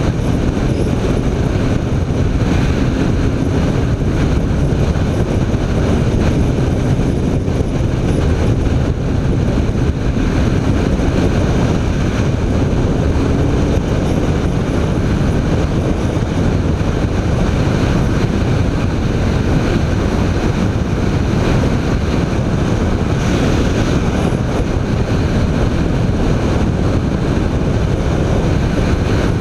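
Riding noise aboard a BMW K1300 R motorcycle: a steady rush of wind with its inline-four engine running at an even speed.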